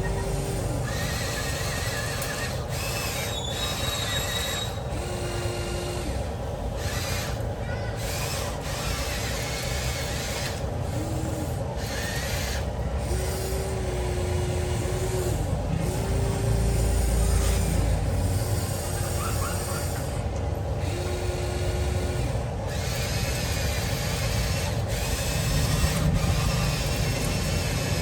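Electric motors and gearboxes of a toy-scale RC excavator whining in short spurts of about a second each, over a steady mechanical hum.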